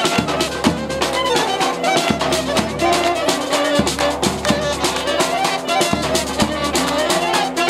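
Live band playing a lively dance tune: clarinet and saxophone carry the melody with brass, over a steady, regular drum beat.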